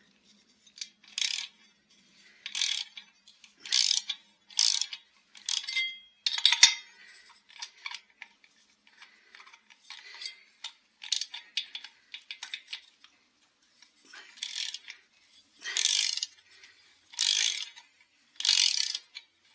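Hand tools working on the metal parts of a Husqvarna 263 chainsaw during a strip-down. It is a string of short clicking, rasping strokes roughly a second apart, fainter in the middle and louder again near the end.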